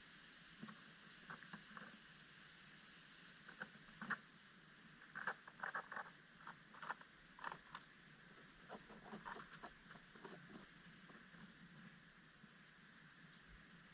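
Small birds pecking and tapping at seed on a feeder, a scatter of light, sharp ticks that come thickest in the middle. Near the end come a few short, high bird chips.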